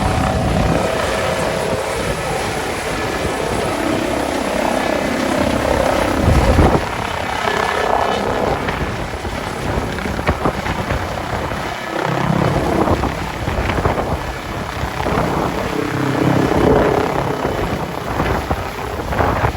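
Helicopter rotor and turbine noise, rising and falling in level, with a louder moment about six and a half seconds in.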